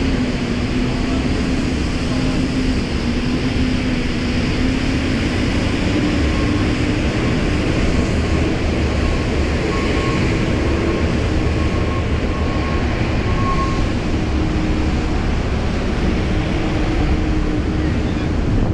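Car driving in city traffic: steady road and engine noise with a low hum that drifts slightly in pitch, and a faint thin tone for several seconds in the middle.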